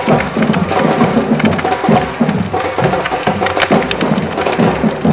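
Samba-reggae drum band playing a steady beat on deep bass drums with sharper drum strikes over it, mixed with the crackle and hiss of ground firework fountains.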